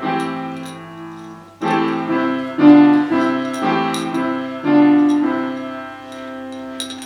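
Background music: piano playing a slow sequence of chords and notes, each struck and then fading.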